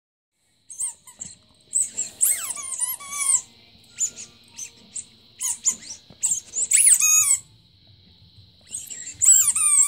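Rubber squeaky ball toy squeaking again and again as a Goldendoodle bites and chews it: clusters of short, high-pitched squeaks, many sliding down in pitch, with brief pauses between the bites.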